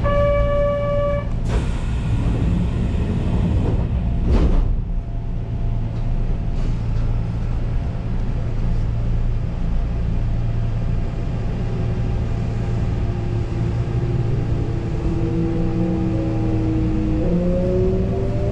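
Kintetsu two-car electric train starting away from a station, heard from the driver's cab. A short steady tone opens, then a hiss of air from about a second and a half in, a sharp clunk near four seconds, and a steady low motor hum. From about twelve seconds the traction-motor whine rises in pitch as the train accelerates, stepping up near the end.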